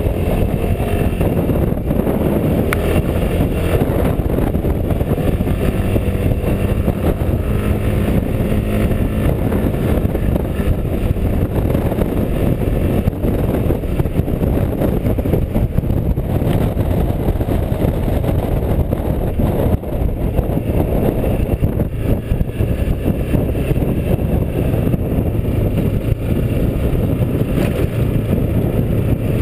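Quadro 350D tilting three-wheeled scooter's engine running under way up a climbing road, its pitch shifting with the throttle, heard over a steady rush of wind and road noise on a chest-mounted camera.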